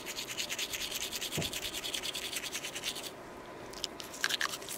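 Toothbrush bristles scrubbing a dog's teeth in quick back-and-forth strokes, pausing briefly about three seconds in, then a few more scrapes.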